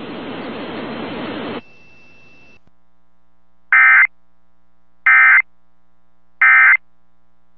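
Emergency Alert System end-of-message signal: three short, identical digital data bursts, each a harsh buzzy warble about a third of a second long, sent about 1.3 seconds apart. Before them, a second and a half of static hiss fades out to near quiet.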